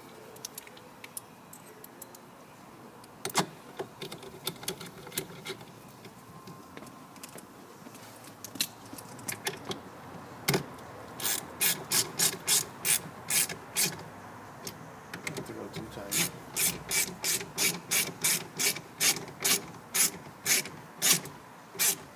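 Hand ratchet wrench clicking as screws are driven in: scattered clicks at first, then steady runs of about two to three clicks a second in the second half, pausing briefly between screws.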